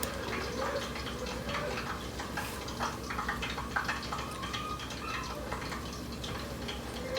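Hot oil sizzling and crackling steadily as a scoop of battered ice cream deep-fries in it.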